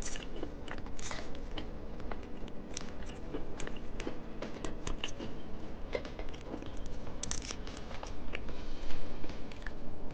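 Close-up crinkling, clicks and small cracks of plastic candy packaging and hard candies being handled and opened, with a denser run of crinkling near the end.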